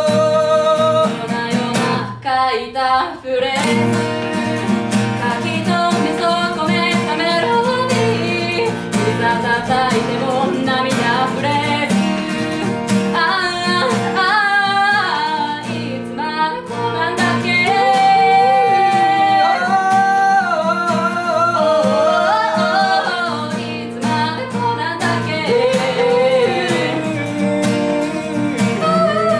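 Acoustic guitar accompanying a man and a woman singing a song, with a short dip in the music about two seconds in.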